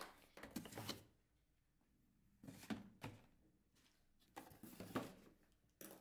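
Cardboard boxes being handled and set into a plastic refrigerator storage bin: a few short, soft knocks and scrapes with quiet gaps between them.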